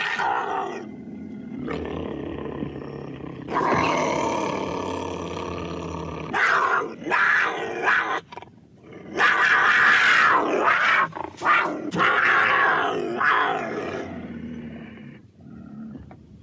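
Cougar calling: a series of long, rough calls of one to three seconds each with short breaks between them, the loudest near the middle, fading towards the end.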